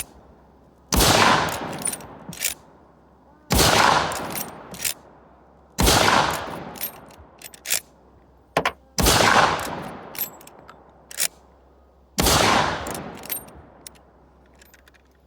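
Five shots from a Miroku-made Winchester 1886 lever-action rifle in .45-70 Government, each echoing for more than a second, with the lever's clicks and clacks as it is cycled between shots. Every round goes off, with no misfires, the firing pin now repaired to strike the primer harder.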